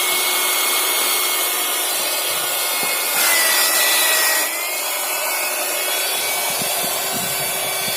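Corded USB electric air pump running steadily as it inflates an air mattress, a steady whir with a thin whine. About three seconds in it grows louder and its whine dips in pitch for about a second before settling again.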